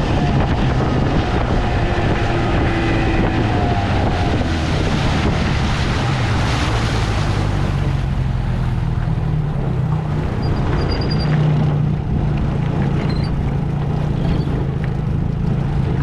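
1973 Johnson 20 hp two-cylinder two-stroke outboard motor running steadily under way, with wind noise on the microphone.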